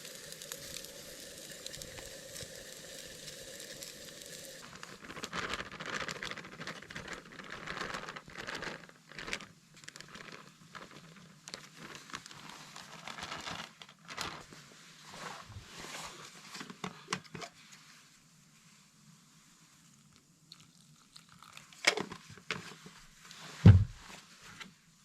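Food sizzling steadily in a frying pan for the first few seconds, then irregular crackling and rustling. It quietens for the last several seconds, with a few sharp clicks and a single heavy thump near the end.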